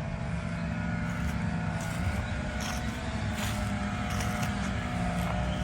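Steady engine drone, a low hum with a faint higher whine held throughout, and a few light clicks in the second half.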